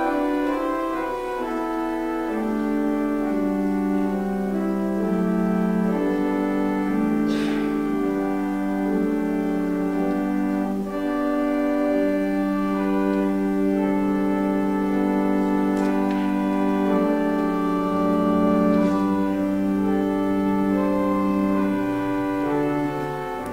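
Organ playing the offertory: slow, held chords that move from one to the next, with low bass notes joining about three-quarters of the way through.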